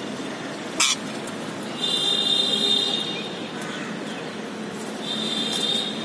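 Rose-ringed parakeets calling over a steady background hum. There is a sharp shriek just under a second in, then two longer shrill squealing calls, about two seconds in and near the end.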